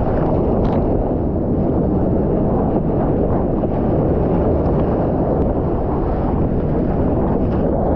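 A surfboard riding a wave: a steady, dull rush of water and spray, with wind buffeting the GoPro's microphone and a few brief splashes.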